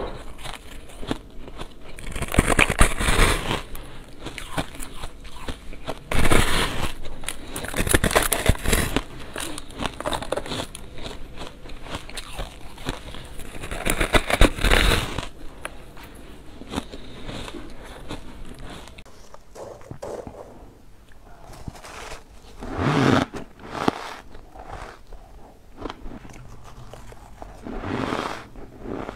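Crunchy bites into a solid block of frosted white ice, each a loud crunch followed by crackling chewing. The biggest bites come about 2, 6, 8 and 14 seconds in, with quieter crunching after and two more bites near the end.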